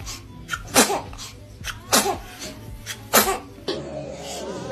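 A child sneezing three times in a row, about a second apart, each a sharp burst of air with a short falling voiced tail.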